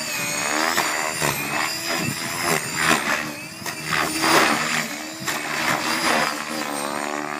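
Electric Gaui X5 RC helicopter flying aerobatics, its rotor head spun at about 2600 rpm by a Scorpion motor: a continuous rotor and motor whine whose pitch rises and falls as the blades load up through flips and passes.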